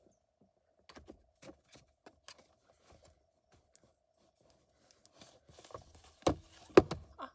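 Small objects being handled and moved about: scattered light clicks and taps, with two louder knocks about six and a half seconds in, over a faint steady hum.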